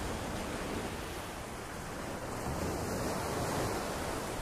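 Small surf breaking and washing up a sandy beach, with some wind on the microphone; the wash grows a little louder about three seconds in.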